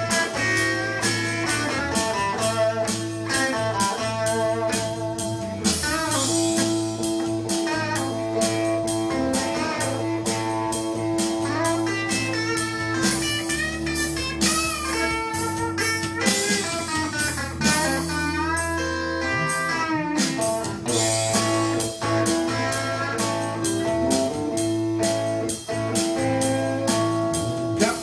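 Blues-rock instrumental break: a lead electric guitar plays bent notes over a backing track with a bass line and a steady drum beat.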